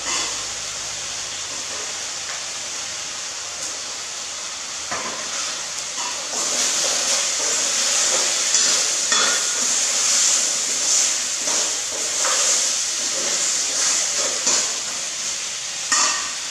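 Hissing and sizzling from a stainless-steel pot on a portable gas stove as food in it is stirred with a metal ladle, with the ladle knocking and scraping against the pot several times. The hiss grows louder about six seconds in.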